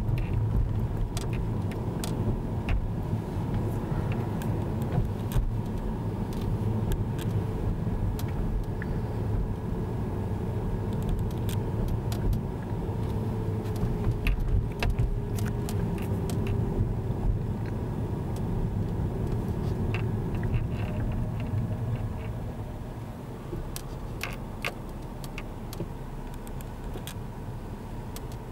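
Car running at low speed, heard from inside the cabin: a steady low rumble of engine and tyres with scattered light clicks and rattles. The rumble grows quieter near the end.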